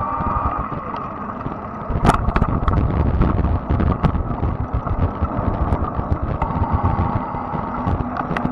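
Fat-tire electric bike underway: a steady high motor whine over a low rumble, with scattered sharp clicks and rattles. The whine fades in the first second and comes back near the end, while the rumble grows louder about two seconds in, starting with a sharp click.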